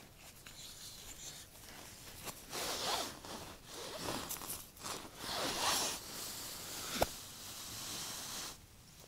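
Gloved hands working an ice-fishing rod and its line: scratchy, zipper-like rubbing and rustling of gloves, line and jacket in several swishes, with one sharp click about seven seconds in. The noise stops shortly before the end.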